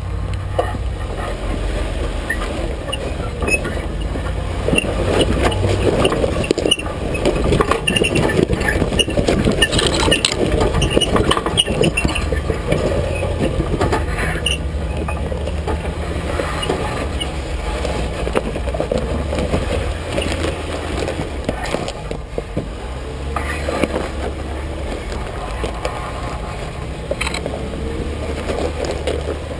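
2008 Jeep Wrangler Unlimited's 3.8-litre V6 running low and steady while crawling, heard close to the front tyre, over the crunch of tyres rolling on rock and gravel and the clanking and rattling of the underbody. The crunching and clanking are busiest from about four to fourteen seconds in.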